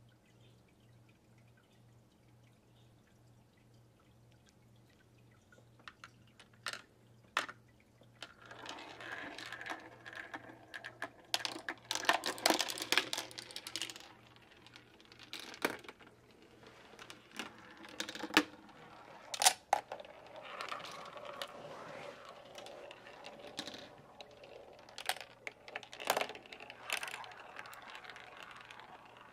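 Marbles rolling down a plastic toy marble run, clicking and clattering on the track pieces and through the tubes, starting about six seconds in. Before that there is only a low steady hum.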